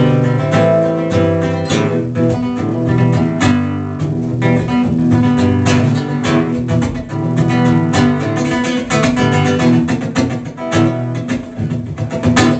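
Solo acoustic guitar played in an instrumental passage with no singing: chords strummed and picked in quick, close-set strokes.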